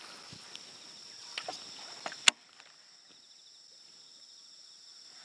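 Steady high-pitched insect chorus, with a few faint knocks and one sharp, loud click a little over two seconds in.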